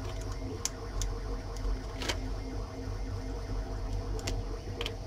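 A handful of small sharp clicks and cracks as the cut top of a MyLaps YRC3 transponder's case is peeled up off the epoxy by hand, over a steady low hum.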